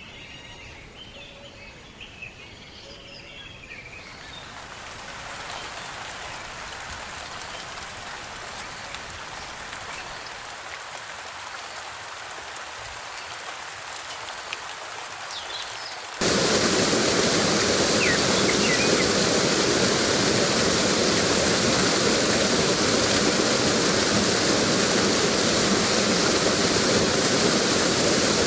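A few bird chirps, then a steady hiss of falling or running water fades in. About halfway through it cuts suddenly to a louder, fuller steady rush of water.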